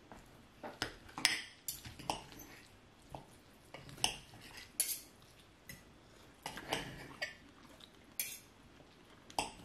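Metal knife and fork clinking and scraping against a plate in short, irregular clicks as food is cut and picked up.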